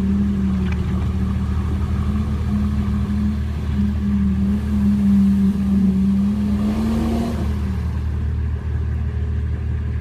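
Nissan Patrol GR diesel engine running steadily in four-wheel drive while wading through a river; its drone drops in pitch about seven and a half seconds in, as the throttle eases.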